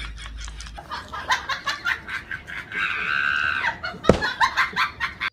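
A person laughing in short stuttering bursts, with one long held high-pitched sound about three seconds in and a sharp loud burst just after four seconds.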